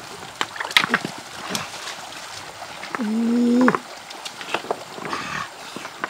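Hands splashing in shallow stream water and stones knocking together as rocks are turned over in a streambed. About three seconds in comes a short, steady, low-pitched call lasting under a second, the loudest sound here.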